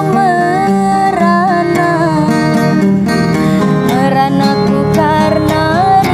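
A woman sings a slow, emotional dangdut melody, her held notes wavering and sliding between pitches, over a strummed acoustic guitar.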